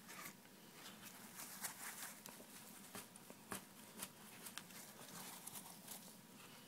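Faint rustling with scattered light ticks of a paper towel wiping antique paste off a carved leather phone cover.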